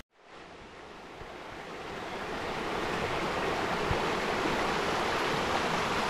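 Shallow rocky stream running over stones, a steady rush of flowing water that fades in over the first couple of seconds after a sudden cut.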